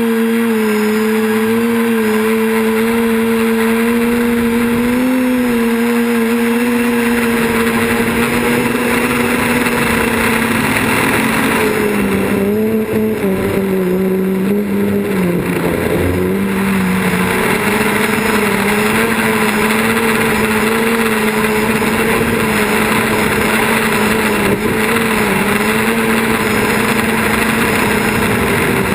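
Quadcopter's electric motors and propellers running in flight: a loud, steady buzzing hum whose pitch wavers with throttle, dipping briefly about halfway through before settling slightly lower.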